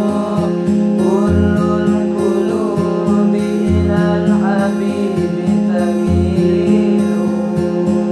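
Two boys' voices singing a devotional duet together, with bending melodic runs, over backing music with strummed acoustic guitar and a bass note about once a second.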